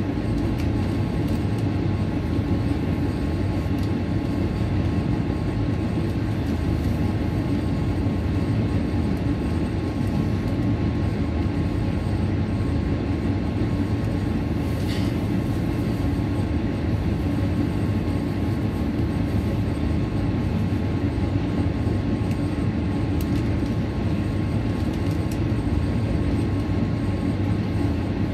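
KiHa 47 diesel railcar's engine idling steadily while the railcar stands at a station, with a faint tick about halfway through.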